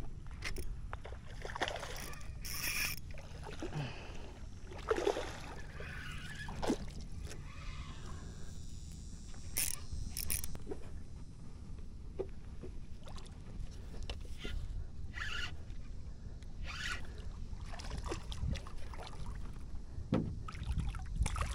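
Water splashing and sloshing around a paddleboard, with scattered small splashes and knocks over a steady low rumble.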